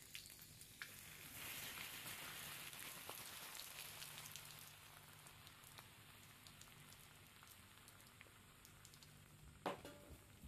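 Water hitting a burning, melted plastic Xbox 360 controller: a hissing, splashing rush that comes in about a second and a half in and dies away over a few seconds as the flames go out and it steams. A single sharp click near the end.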